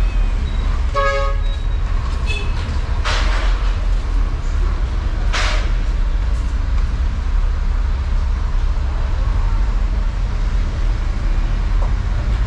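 Steady low rumble of street traffic, with a short vehicle horn toot about a second in. Two short hisses follow, about three and five and a half seconds in.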